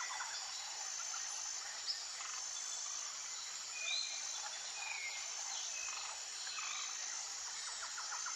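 Natural outdoor ambience: insects buzzing and trilling steadily, with a few short bird chirps scattered through. No deep animal call is heard.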